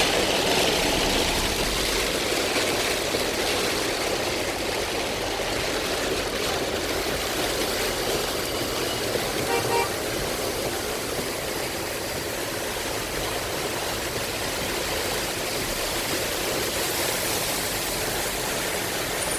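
Heavy rain beating steadily on a moving car, with a short car-horn toot about halfway through.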